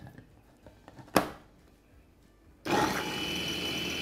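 Electric glass food chopper (La Gourmet, four blades) switching on about two-thirds of the way in and running steadily with a high whine as it minces garlic cloves and bird's eye chillies. A single sharp click comes a second or so in, before the motor starts.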